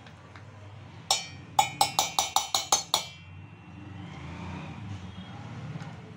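A steel spoon striking the rim of a stainless steel tumbler: one ringing clink, then a quick run of about seven clinks, knocking vanaspati (Dalda) fat off the spoon. A softer scraping follows.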